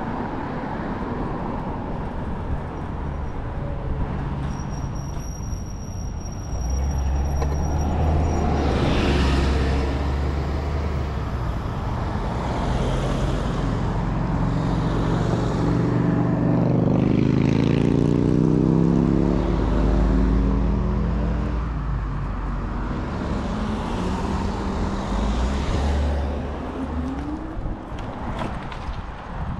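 Wind buffeting the microphone and road noise from a Kaabo Wolf King GT electric scooter riding at speed. The rush grows louder a few seconds in, and a pitched hum swells and glides in the middle before fading back.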